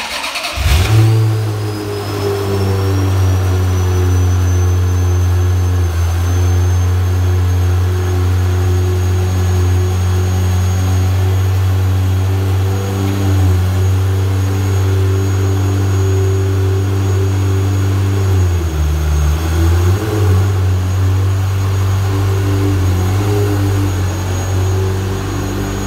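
Ferrari F355's 3.5-litre V8 cold-starting: it catches under a second in with a brief flare of revs, then settles into a steady fast cold idle. The idle sags briefly in pitch about two-thirds of the way through, then recovers. A faint high whine rises slowly in pitch over the first several seconds.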